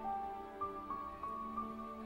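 Background music: a soft, slow melody of long held notes.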